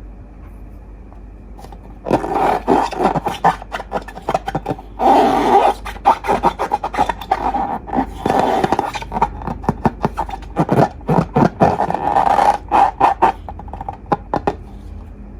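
Slime and rubber balloons being squeezed and worked by hand: a dense run of crackling clicks and squeaks that starts about two seconds in and stops near the end.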